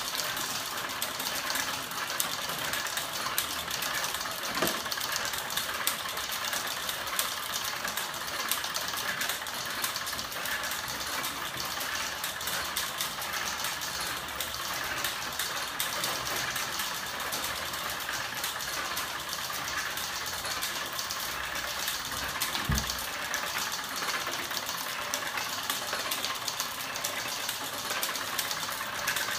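Crank-and-wheel flapping-wing machine, driven by an electric motor, running fast: a steady whirring rattle with rapid fine ticking. There is one dull low bump about three-quarters of the way through.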